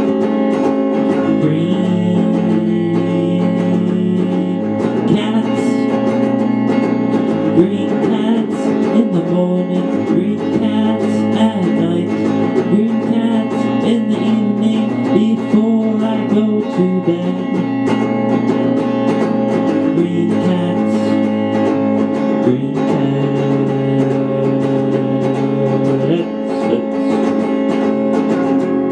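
Electric guitar played without singing: picked notes over held, droning lower notes, which shift pitch a few times.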